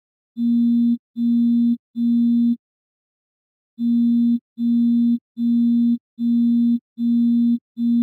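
Phone buzzing in short, even pulses, each about half a second long: three pulses, a pause of about a second, then a steady run of pulses.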